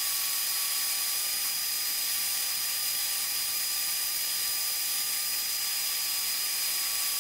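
Hegner scroll saw running steadily, its blade cutting birch plywood: a steady high whine over an even hiss.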